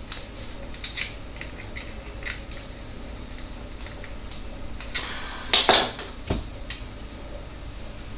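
Small metal clicks and handling noises of a hose clamp being adjusted by hand and with pliers, with a few sharper clacks about five to six seconds in.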